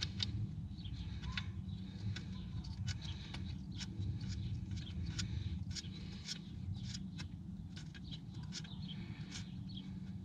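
Small irregular scratches and clicks of fingers working a new brass cylinder head temperature sensor into its threaded port by hand, over a steady low hum.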